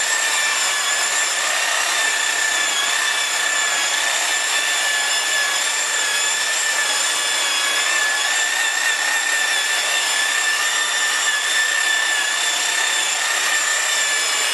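Electric buffer running steadily with a high, even whine, polishing the chrome transmission cover of a motorcycle.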